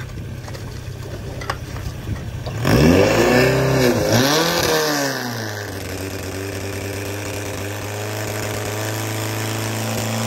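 Portable fire pump's engine opened up to full throttle: after running quieter with a few knocks, it revs sharply up and down twice about three seconds in, then settles into steady high-speed running that climbs a little near the end, driving water into the attack hoses.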